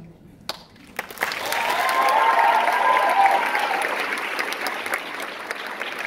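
Theatre audience applauding, starting with a few claps about half a second in and swelling into full applause with shouts of cheering, then slowly easing off.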